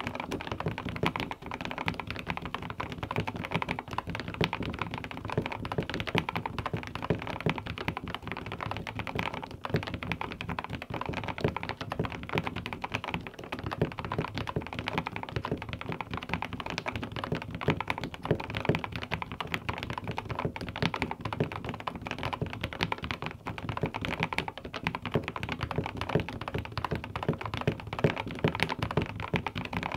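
Fast, continuous typing on a compact 65%-style mechanical keyboard with a rotary knob: a dense, unbroken stream of keystrokes.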